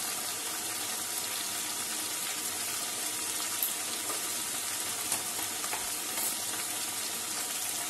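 Potato chunks and spices frying in hot oil in a metal kadai: a steady sizzle with a few small pops.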